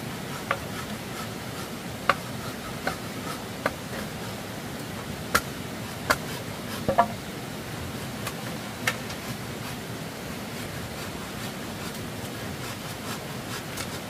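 Irregular sharp knocks and clicks, about ten of them in the first nine seconds and none after, over a steady background hiss.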